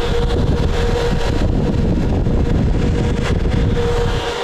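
Cooling fans of a pair of running Ku-band TWT amplifiers, a steady whir with a constant hum and heavy low rumble; the rumble drops away near the end.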